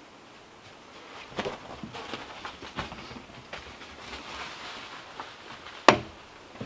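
Scattered light knocks and scuffs of wood as ash cordwood floor rounds are handled, with one sharper knock near the end.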